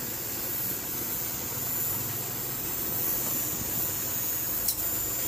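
Hitachi inverter air conditioner running: a steady mechanical hum with hiss and a faint high steady whine. A single sharp click comes near the end.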